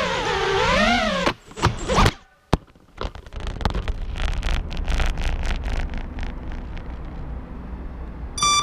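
Brushless motors of a 5-inch FPV racing quad whining and rising and falling in pitch as the throttle changes, then several sharp impacts as the quad crashes and its motors stop. A run of soft clicks and knocks follows.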